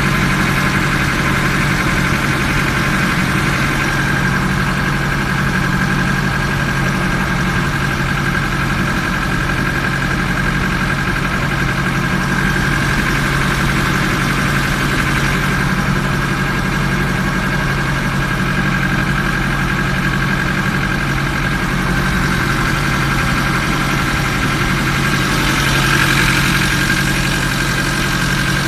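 Ferry boat's engine running steadily aboard the boat, a loud, even drone with a constant low hum and a steady higher whine over it.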